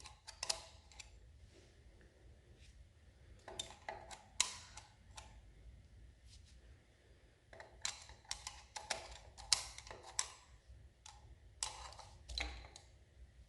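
Scattered light clicks, taps and scrapes of engine parts and tools being handled at the thermostat housing, which is clogged with built-up debris. They come in three short clusters.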